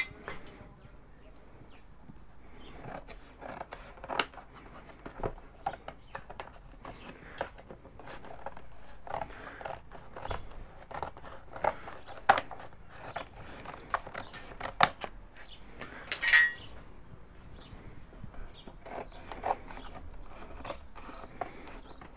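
Cardboard being handled, folded and cut with scissors: scattered crinkles, snips and taps, with one louder scrape and squeak about sixteen seconds in.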